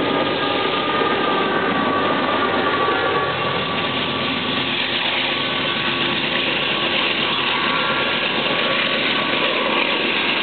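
GE AC4400CW diesel-electric pusher locomotive, with its 16-cylinder GE FDL engine working, passing and drawing away. It runs steadily, with a high whine that fades over the first few seconds.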